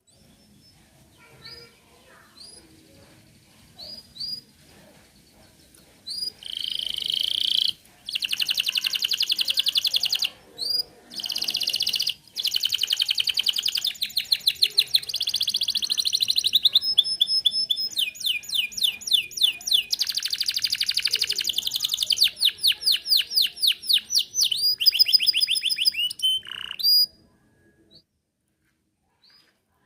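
Domestic canary singing: a few short high chirps, then a long loud song of fast rolling trills and rapidly repeated notes lasting about twenty seconds, which stops suddenly near the end.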